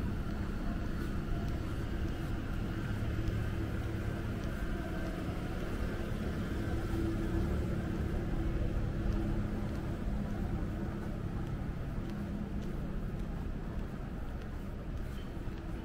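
Steady low rumble of city street ambience and distant traffic, with a car driving slowly past near the start.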